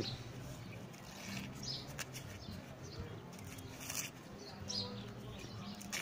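Green husk leaves being torn and peeled off a baby corn ear by hand: short, dry rustling tears, several in a row, with a sharper one about four seconds in.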